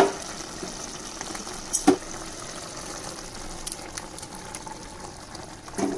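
Sambar simmering in a steel pot with a steady soft bubbling hiss. About two seconds in, one sharp knock of a utensil against the pot.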